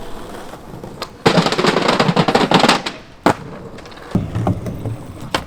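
Skateboard grinding along an obstacle with a rapid, crackling clatter for nearly two seconds, then a single sharp clack of the board, followed by the wheels rolling away with a low rumble.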